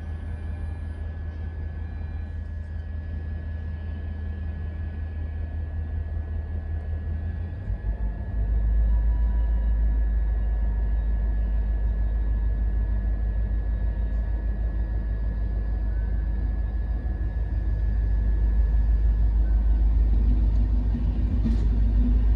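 Deep, steady drone of a DSB class ME diesel-electric locomotive powering a double-deck push-pull train away from the platform. The drone gets deeper and louder about eight seconds in as the engine takes power, and builds further near the end as the coaches pass, with a thin steady whine above it.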